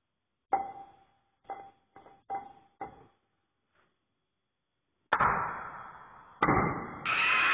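Hammer blows on a flat steel bar held against a lathe chuck: five light ringing taps, then two heavy metallic blows about five and six and a half seconds in, each ringing out. A loud burst of noise starts just before the end.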